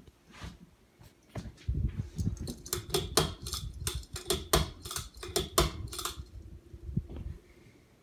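Harbor Breeze ceiling fan running with a steady hum under rapid, irregular clacking and knocking, several knocks a second. It dies away after about six seconds and the hum stops shortly after.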